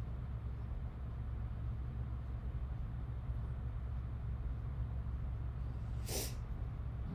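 Steady low background hum, with one short, sharp noise about six seconds in.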